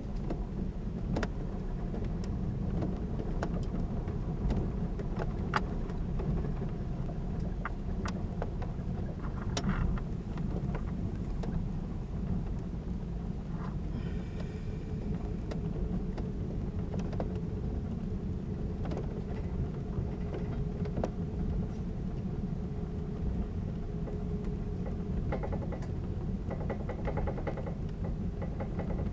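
Running noise of a 583-series electric sleeper train heard from inside the car, close above a motored bogie: a steady low rumble of wheels on rail, with scattered sharp clicks and knocks. A faint steady hum runs through the middle.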